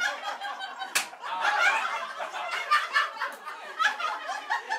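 A group of people laughing and chattering together, with a sharp smack about a second in.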